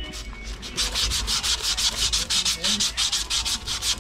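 Pipe being sanded by hand with rapid back-and-forth rubbing strokes, several a second, fainter for the first second and then steady, to prep its surface for a no-slip coupling.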